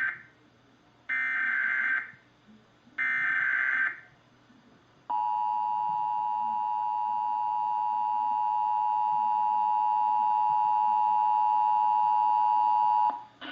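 Emergency Alert System header: the tail of one burst of SAME data tones, then two more raspy one-second data bursts about a second apart. About five seconds in comes the EAS attention signal, the steady 853 Hz and 960 Hz two-tone alert, held for about eight seconds before it cuts off sharply.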